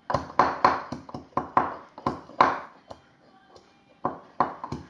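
Garlic being crushed for köfte: a run of sharp knocks, about three a second, pausing briefly near the end and then starting again.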